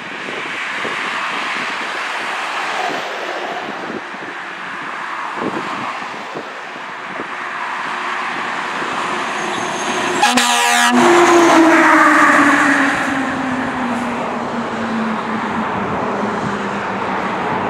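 Pierce Arrow XT fire engine responding through road traffic: tyres and engines of passing vehicles, then a short air horn blast about ten seconds in, followed by a low siren tone that slides steadily down in pitch over the next several seconds as the engine goes by.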